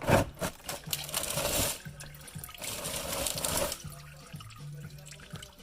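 Engine oil gushing out of the drain into a catch pan, starting suddenly and coming in two rushing spells about a second and a half each, then easing off.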